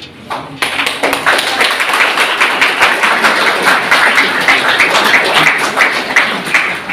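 Audience applauding, many hands clapping together, starting about half a second in.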